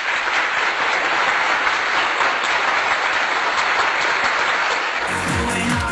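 Audience applauding steadily. About five seconds in, dance music with a heavy bass beat cuts in over it.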